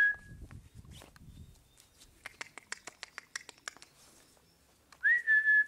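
A squeaky plush dog toy squeaking twice as a puppy bites it: one high, steady squeak right at the start and another about five seconds in. A run of light clicks in between.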